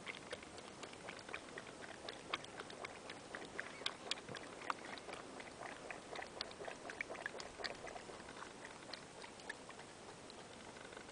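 Kangaroo lapping water from a puddle on the ground: a faint run of quick, irregular small wet clicks, busiest in the middle and thinning out near the end.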